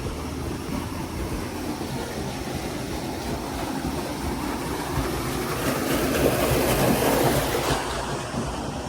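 Waterfall rushing: a steady roar of falling water that swells louder about six seconds in and then eases off slightly.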